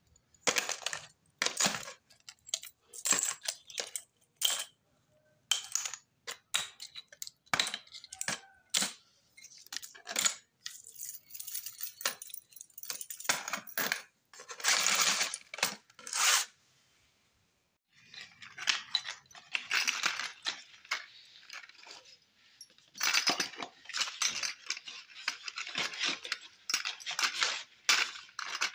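Metal wristwatches and their link bracelets clinking and jangling against each other as a hand rummages through them in a cardboard box. After a short pause, a handful of bangles jingles and clinks as a hand stirs them around in a box.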